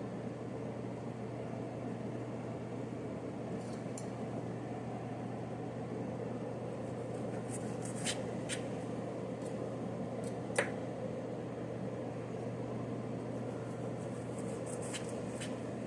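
Steady hum of a kitchen exhaust fan, with a few light clicks and one sharper knock about ten and a half seconds in.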